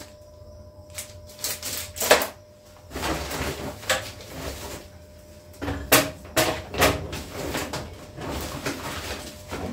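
Small items being handled: rustling with several sharp clicks and knocks, the loudest a cluster of knocks about six to seven seconds in.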